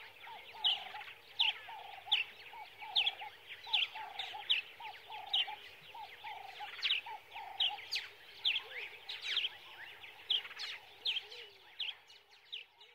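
A quick, regular series of high chirps, each sliding downward, about one and a half a second, with a lower repeated note between them.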